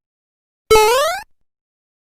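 A short meme sound effect, the "brepepepep" clip: one pitched voice-like sound that holds briefly, then glides upward in pitch, lasting about half a second after a silent gap.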